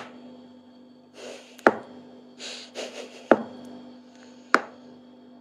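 Four sharp light clicks, roughly one every second and a half, with soft breathy puffs between them over a faint steady hum.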